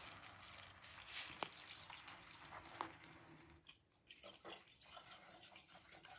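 Faint pouring of water and then green antifreeze coolant from plastic jugs through a funnel into a car radiator, with a couple of light clicks along the way. The radiator is being filled with a rough half-and-half mix of water and coolant.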